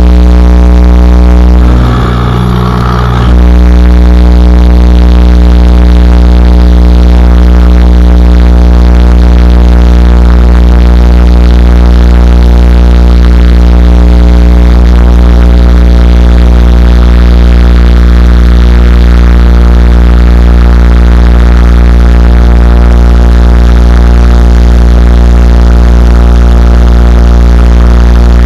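A robot's on-board pneumatic air compressor running close by, charging the air system with a loud, even buzzing hum. Its tone shifts briefly for about a second and a half, around two seconds in.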